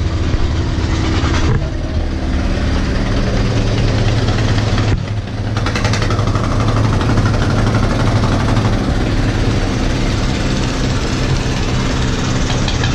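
Steady drone of a large river passenger launch's diesel engines under a broad rushing noise, changing abruptly about a second and a half and about five seconds in.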